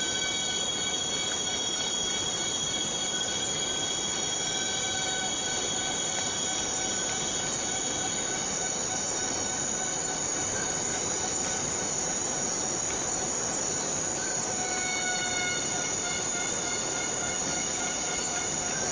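Steady rain falling on rainforest foliage, with several insects holding thin, high, steady tones over it that fade in and out.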